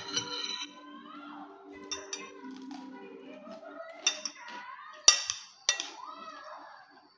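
Metal spoon and fork clinking and scraping against a plate while eating, a few sharp clinks with the loudest about five seconds in.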